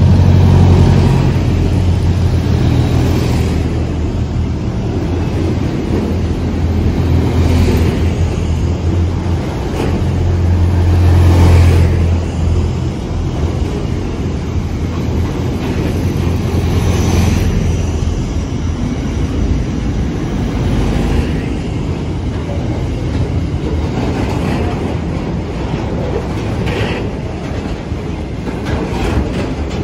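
A diesel-hauled train passing close by. The deep, steady drone of its locomotive engines dominates for about the first twelve seconds, then gives way to the rolling rumble and clatter of wheels over the rail joints.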